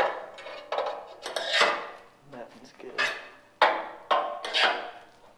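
A long steel hand tool is worked back and forth in a bolt hole of a steel truck frame and its C-notch bracket. It makes repeated metal-on-metal scraping strokes, nearly two a second, while the holes are cleared out to take 7/16 bolts.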